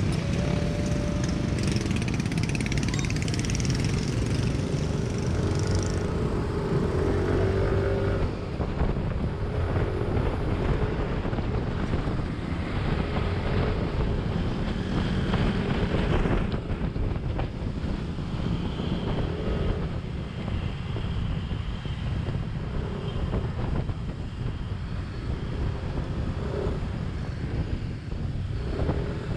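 Riding noise on a Yamaha NMAX scooter in motorcycle traffic: a steady rush of wind and road noise with the engines of the scooter and the motorcycles around it, and short engine or horn tones from passing bikes in the first several seconds.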